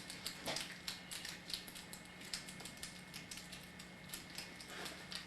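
Irregular light clicks and ticks, several a second, of small objects or tools being handled, over a steady low hum.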